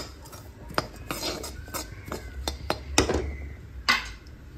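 Metal spatula scraping and knocking against a metal kadhai while stirring a coarse ground mixture of makhana (fox nuts) and dry fruits being dry-roasted in ghee. The scraping is irregular, with a few sharp clinks where the spatula strikes the pan.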